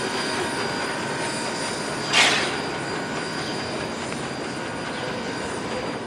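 Baldwin 0-6-0 steam locomotive rolling slowly past, a steady rumble of wheels on rail with a faint thin squeal. One short exhaust chuff comes about two seconds in, and the sound fades near the end as the engine moves away.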